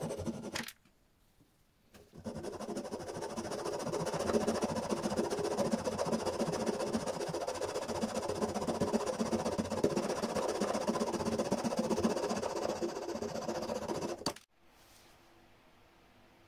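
Miniature hand-held coping saw with a fine-toothed blade sawing through wood in back-and-forth strokes. The sawing stops briefly about a second in, starts again, and cuts off abruptly near the end.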